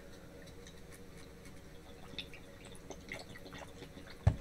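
Coolant dripping in small scattered drops from an MSI MAG 360R AIO radiator as it drains, with one sharp knock near the end.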